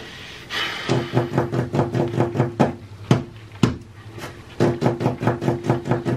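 Background music of short plucked notes in a quick, even rhythm of about six a second, breaking off briefly near the middle for two single notes and picking up again.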